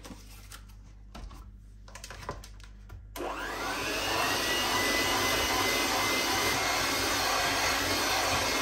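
Electric hand mixer switched on about three seconds in: its motor whine rises, then runs steady as the beaters churn through cake batter. Before it starts there are only a few faint knocks.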